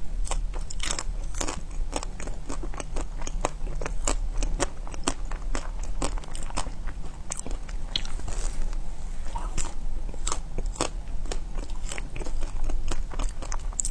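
Close-miked biting and chewing of a frozen ice cream bar with a hard pink coating: a steady run of sharp, irregular crackles and crunches as the shell cracks.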